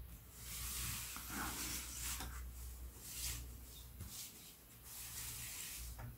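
Plastic Lego bricks handled and turned: faint rubbing and scuffing of hands on the model as it shifts on the tabletop, with a few light clicks.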